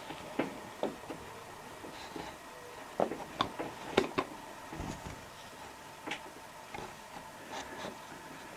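Irregular light taps and clicks, a dozen or so at uneven spacing and loudest about three and four seconds in, over a faint steady hum.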